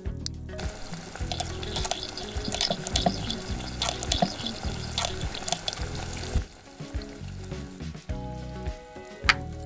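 Butter sizzling and crackling as it melts in a tiny clay pot, with a small metal spoon stirring it, over background music. The sizzle stops about six seconds in, leaving the music, with one sharp tick near the end.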